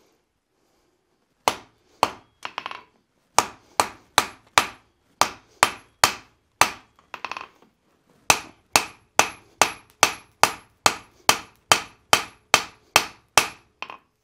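Hand hammer striking a red-hot steel axe blank on the anvil. A few spaced blows come first, then steady strings of about two to three blows a second, with a short pause midway. This is hot forging, refining the pointed ears of a wrapped eye axe before it is forge-welded.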